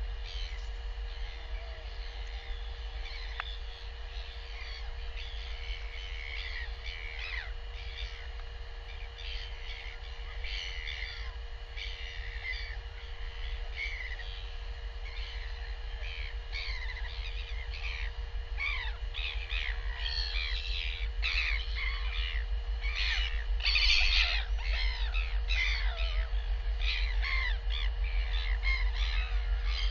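Wild birds calling, many short overlapping calls that grow busier and louder through the second half, over a steady low wind rumble and a faint steady hum.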